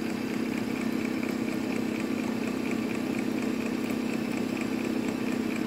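Sun distributor tester running steadily, its motor spinning a 1967 Oldsmobile 4-4-2 distributor at about 50 distributor RPM for a dwell and advance test: an even, unchanging hum.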